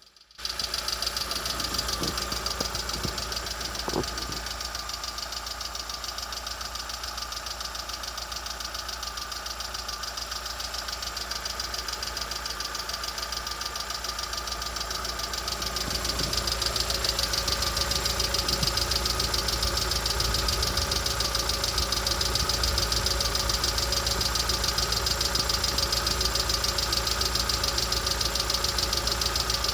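Lada Vesta SW Cross's 1.6-litre, 106 hp petrol engine running steadily with a rapid, regular knock in the engine. The sound gets louder about halfway through.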